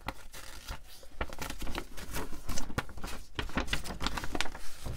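A folded paper poster being unfolded by hand, the paper rustling and crinkling in quick, irregular crackles.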